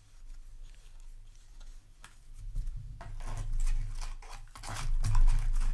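Trading cards and a foil booster pack being handled: scattered light clicks and crinkles, getting busier and louder from about halfway in, over a low steady hum.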